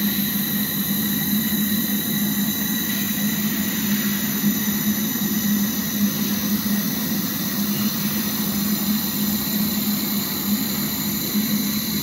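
Handheld fiber laser welding machine running while welding a seam in galvanized steel sheet: a steady hum with a rough, fluctuating hiss over it.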